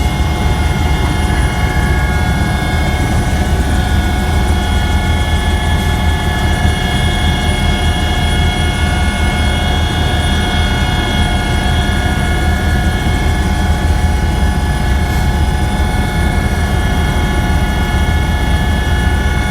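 Helicopter running steadily: a heavy low rotor and engine rumble with several steady high whining tones from the turbine and gearbox above it.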